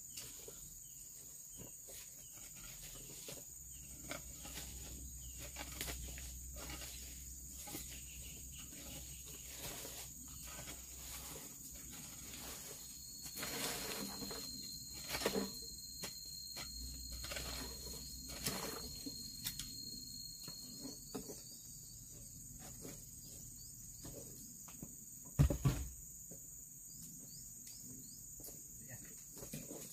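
Insects droning steadily at a high pitch, with a second, lower thin whine for several seconds in the middle. Under it come irregular light knocks and steps, and one loud thump about 25 seconds in.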